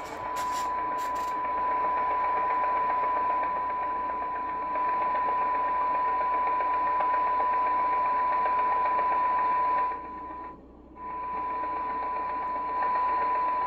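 Steady test tone from a signal generator, heard through a Tram D-80 CB radio's speaker over a hiss. The received signal is weak, set near the radio's sensitivity limit for a SINAD receive alignment. A few clicks come about a second in, and the tone and hiss drop out briefly about ten seconds in.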